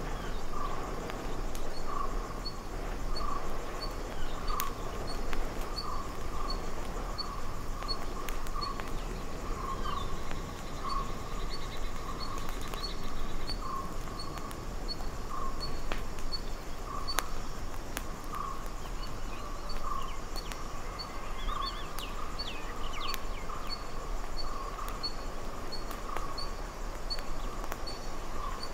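Early-morning tropical forest ambience. A high, short note repeats about twice a second over a lower call that keeps repeating underneath, with a few scattered chirps and clicks.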